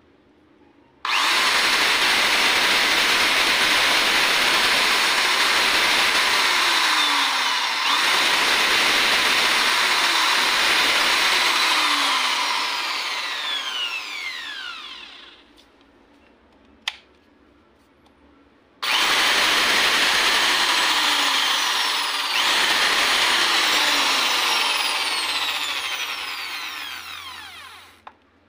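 Bosch GSB 13 RE corded impact drill running free with no load, twice. Each time it starts abruptly, runs steadily for several seconds, then coasts down with a falling whine. A single click comes between the two runs. The drill is running again now that the break in its power cord has been repaired.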